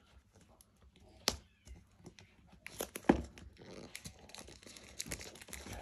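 Clear plastic shrink-wrap being picked at and peeled off a small cardboard box: scattered crinkles and crackles, with a sharper crackle about a second in and another around three seconds in.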